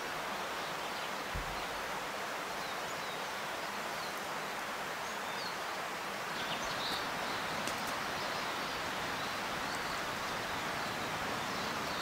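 Steady rushing outdoor woodland ambience, with faint high chirps of small birds scattered through and a few light ticks about two-thirds of the way in.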